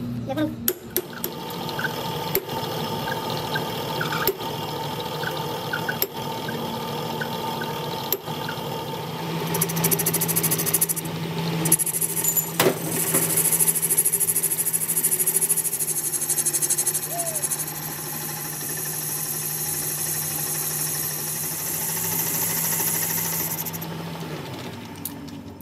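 Metal lathe running with its chuck spinning, a sharp click coming about every two seconds. From about nine seconds in, the cutting tool bites into the metal sleeve and adds a steady high hiss, which fades shortly before the end.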